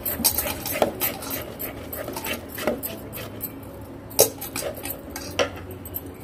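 A utensil stirring and scraping a thick mixture of ground chana dal and jaggery syrup in a pan, clicking and knocking irregularly against the pan's sides, with a few sharper, louder knocks.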